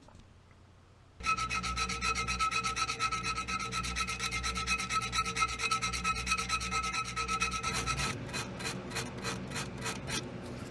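Abrading and rubbing the hardened epoxy steel putty between the shotgun barrels to clean it up. About a second in, fast continuous rubbing starts with a steady high whine under it, then near the end it changes to slower separate strokes, about three a second.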